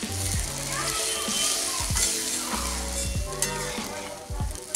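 Spice-paste gravy with green peas sizzling in a hot pan, just after a little water was added, while a metal spatula stirs it. Background music with held bass notes plays over it.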